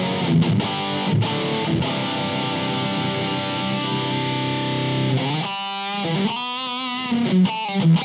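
Electric guitar played through an IK Multimedia X-Drive pedal on its "Just Fuzz" preset into an Engl Ironball SE amp: a few picked chords, one chord left ringing for about three seconds, then short choppy notes with a wavering pitch near the end.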